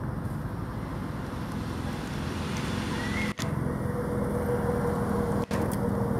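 Steady outdoor background noise with a low mechanical hum, like distant traffic; a steadier hum joins about halfway through, with two brief dropouts.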